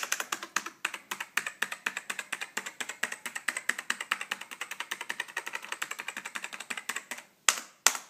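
Dell AT-101W keyboard's black Alps slider switches clacking under rapid typing, several keystrokes a second. The typing stops about seven seconds in, followed by two louder knocks.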